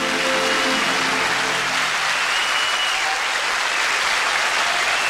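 Studio audience applauding, with the band's last held chord fading out in the first two seconds.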